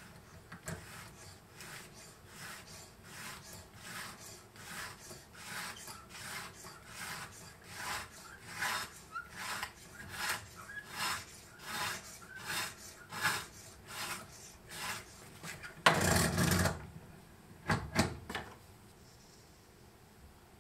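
Sharpening stone on a guided sharpening jig's rod, stroked back and forth along the steel edge of a tracker knife: even rasping strokes, a little under two a second, growing stronger. About 16 seconds in there is a louder, longer clatter, then two sharp clicks.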